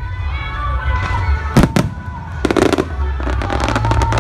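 Aerial fireworks bursting overhead: two sharp bangs a little past a second and a half in, then a rapid crackling of many small reports through the second half, with music playing underneath.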